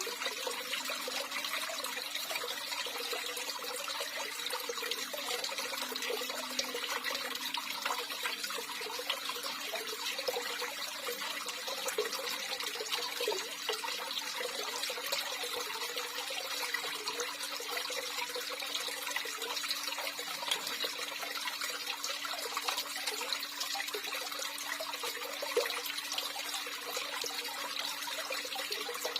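Water running and trickling steadily, an even splashing rush without pauses or changes.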